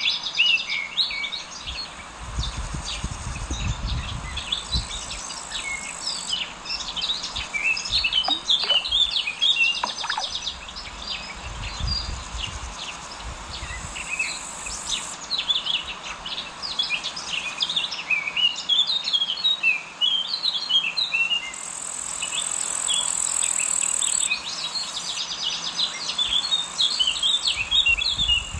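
Many small birds chirping and singing in a busy chorus. A thin high buzz comes and goes several times, with brief stretches of low rumble beneath.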